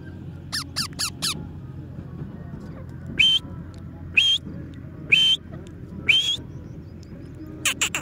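Young rose-ringed parakeet calling: four quick falling chirps near the start, then four harsh squawks about a second apart, and a fast run of chirps just before the end.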